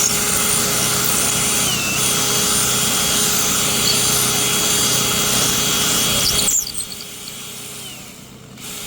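Electric drill running steadily, widening the centre hole in a knife's handle block so that a hidden tang will fit. Its whine dips slightly about two seconds in, and it cuts off suddenly about six and a half seconds in.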